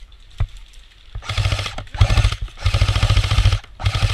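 Airsoft gun firing four rapid full-auto bursts, each well under a second and the third about a second long, with a single click just before them.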